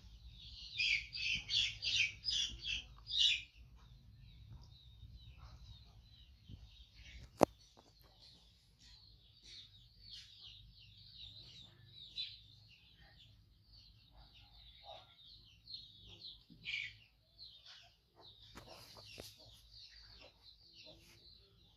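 High-pitched chirping animal calls: a quick run of about eight loud chirps in the first three seconds, then fainter scattered ones. A single sharp click about seven seconds in.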